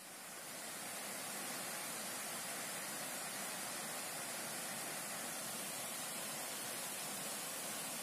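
Steady hiss of flowing water, swelling up over the first second and then holding even.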